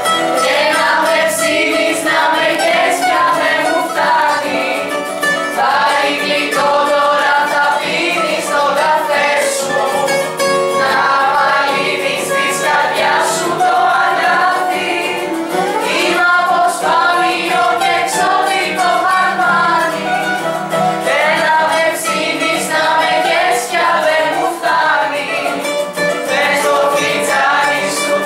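A group of young voices, mostly girls, singing a song together in chorus, accompanied by a strummed acoustic guitar and a bouzouki.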